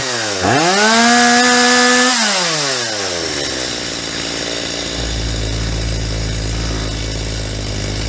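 Stihl MS250 two-stroke chainsaw revved to full throttle twice: a quick blip, then a steep climb held at high speed for about a second and a half before dropping back to a steady idle. The saw is being tuned on its high-speed mixture screw, which is set just to the climb on the peak, short of bogging.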